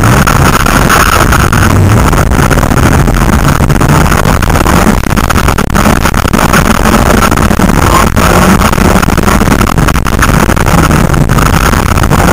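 Rally car engine running hard under load, heard from inside the cabin, its pitch rising and falling with the driving, over loud rushing noise from the tyres on a loose dirt track, with a few sharp knocks.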